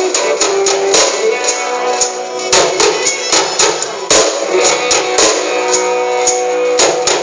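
Live band playing: strummed guitars over percussion keeping a steady beat.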